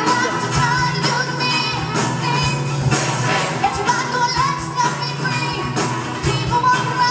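Live pop music: a woman sings lead into a handheld microphone over a band and orchestra with a steady beat.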